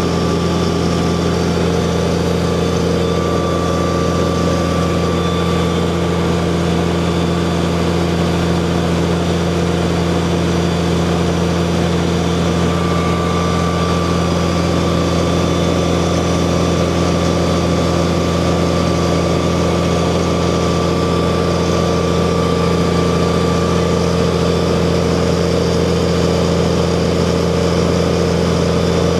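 Fire engine's engine running steadily at about 1,700 rpm during a pump test, a constant drone with a few steady tones.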